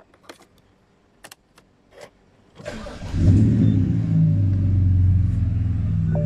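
A few light clicks as the BMW E60's key fob goes into the ignition slot, then about two and a half seconds in the engine cranks briefly, catches, and settles into a steady idle.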